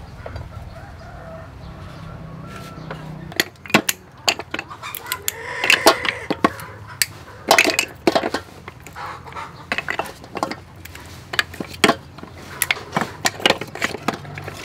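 Clam shells clicking and clattering against each other and the metal bowl as they are picked through by hand, an irregular run of sharp clicks that starts a few seconds in. A chicken calls in the background around the middle.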